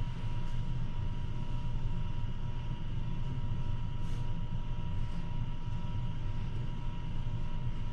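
Steady low rumble of room background noise, with a thin steady tone held over it throughout.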